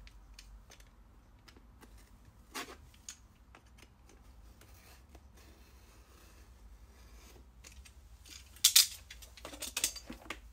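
Scattered light clicks and knocks of hands handling a hard plastic cordless-drill carry case, then a cluster of loud sharp plastic snaps near the end as its latches are flipped open.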